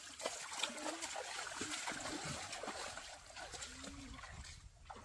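Water splashing and sloshing as hands and legs move through a shallow, stony stream, with many small irregular splashes that die away near the end.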